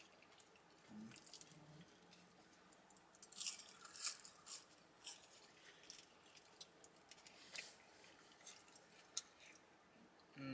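Faint close-up chewing of food, with irregular soft crunches and mouth clicks.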